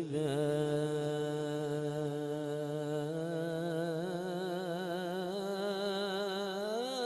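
A man's voice in melodic Quran recitation, holding one long drawn-out vowel of the refrain through a microphone, wavering evenly in a steady vibrato. The note climbs slightly in pitch near the end.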